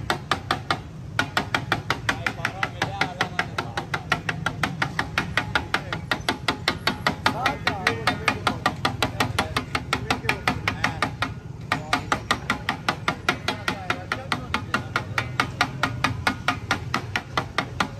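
Steel spatula clacking rhythmically against a large flat steel tawa, about four strikes a second, as onions and green chillies fry on it. The strikes break off briefly about a second in and again near the 11-second mark.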